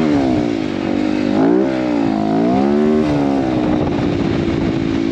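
Motorcycle engine pulling hard through soft dune sand, heard from on the bike. Its pitch rises and falls several times as the throttle is worked, then holds steadier near the end.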